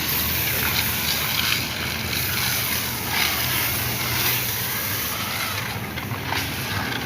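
Pressure washer spraying water on a motorcycle: a steady hiss over the low hum of its pump motor.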